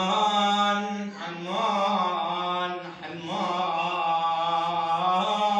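A solo voice sings an Iraqi lament, drawing out long, wavering held notes in a few phrases with short breaths between them.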